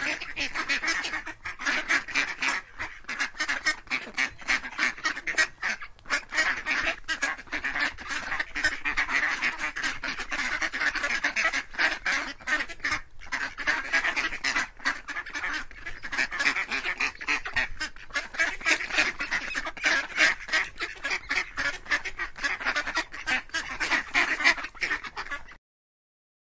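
Mallard quacking in a rapid, unbroken stream of calls that stops abruptly near the end.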